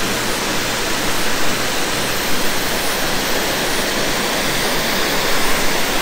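Marokopa Falls' water pouring down in a loud, steady rush.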